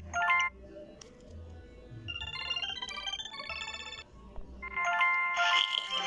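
Electronic melody of short beeping notes: a brief blip at the start, a quick run of stepping notes in the middle, and longer held notes near the end.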